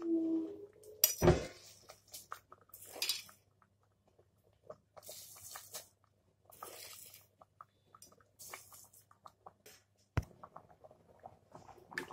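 Soaked basmati rice dropped by hand into a pot of boiling stock, with short splashing spells as it goes in. A pair of loud clanks against the pot comes about a second in, another knock near 3 s, and a sharp click near the end.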